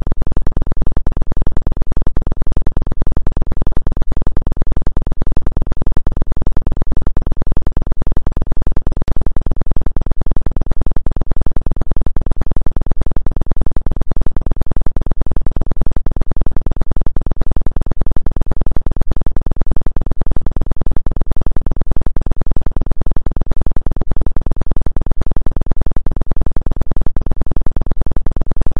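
Synthesized 'frequency' track billed as a 2 Hz acupuncture frequency: a loud, steady, dense noise with most of its weight in the bass and little above the midrange.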